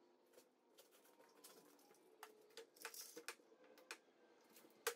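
Faint, scattered clicks and taps of clamps and tools being handled on a wooden workpiece, with one sharper click near the end, over near silence.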